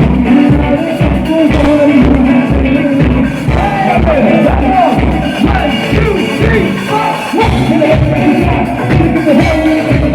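A live band playing loud music with a steady drum beat, about two beats a second, and a melodic line that slides and wavers in pitch above it.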